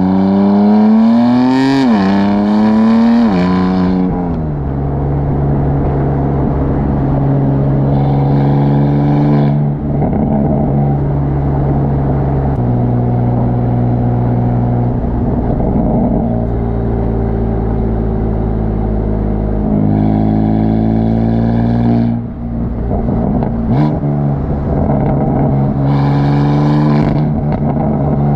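BMW F82 M4's S55 twin-turbo straight-six exhaust, picked up by a microphone at the tailpipe. It accelerates hard through two quick upshifts at the start, then settles into a steady low drone while cruising, with a few shorter bursts of throttle. There are a couple of sharp pops on lift-off about two-thirds of the way through.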